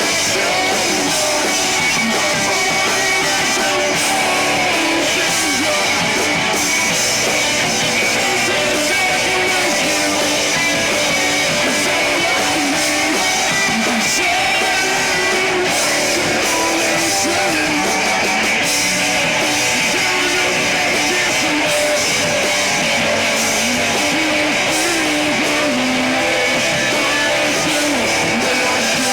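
Live rock band playing a song, with guitar prominent, at a steady loud level.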